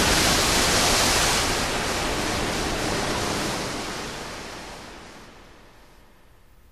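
Rushing water as a submarine's bow breaks the surface: a steady, loud hiss that fades away over the last few seconds to a faint hiss.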